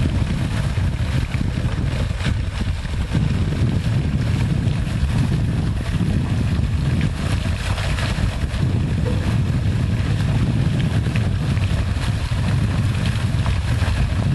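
Water gushing steadily from a tank truck down a wooden chute and splashing into a pond, over a steady low rumble.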